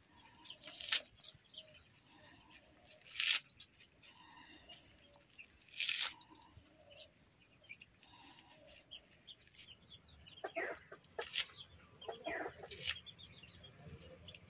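Spring onion stalks being cut against a boti blade: about five short, crisp cuts a few seconds apart. Chickens cluck near the end, and small birds chirp faintly.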